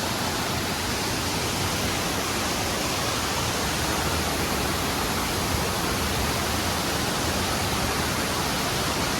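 Soi Sawan waterfall: a steady, even rush of falling water.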